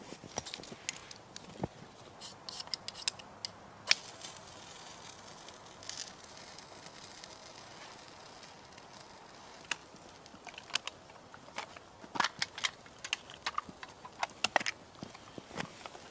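Irregular sharp clicks and crackles over a faint steady hiss, thinning out in the middle and growing busier again near the end.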